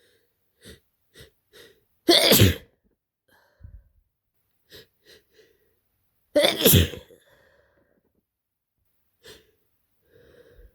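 A person with a heavy head cold sneezing twice, two harsh sneezes about four seconds apart, each preceded by a few short catching breaths. Faint breathing follows near the end.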